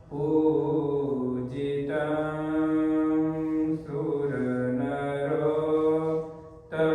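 A Hindu devotional mantra chanted in long, held notes, the voice moving between a few pitches and pausing briefly for breath near the end.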